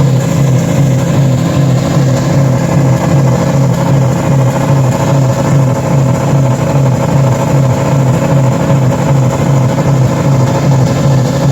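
Car engine running loud and steady at a held, unchanging speed while being run deliberately to destruction.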